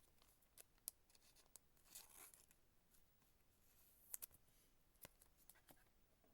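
Near silence with faint clicks and a few short swishes of trading cards being handled and slid against one another.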